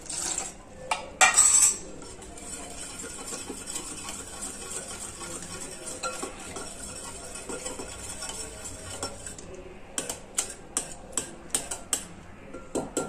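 Water pouring into a glass bowl of curd and gram-flour batter, then a wire whisk beating the thin mixture. Near the end the whisk clicks rapidly against the side of the glass bowl.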